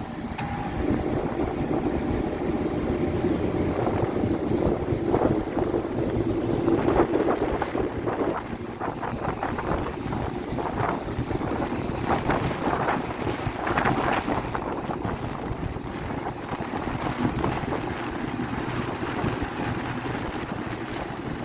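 A Trane HVAC unit runs steadily, its compressors and fans humming, just after stage 4 is switched on to bring in the second compressor. Wind buffets the microphone throughout.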